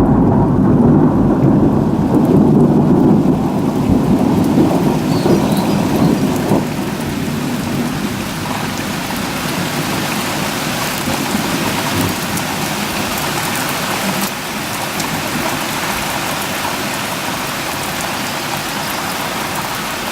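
Thunder rumbling loudly for the first several seconds and then fading away, over the steady hiss of heavy rain.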